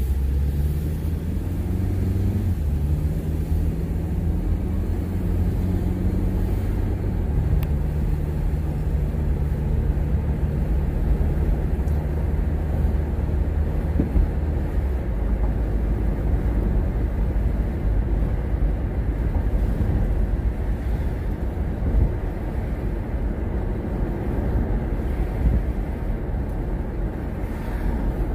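Car engine and tyre noise heard from inside the cabin while driving. Over the first several seconds the engine note climbs and steps up as the car pulls away, then it settles into a steady low rumble at cruising speed.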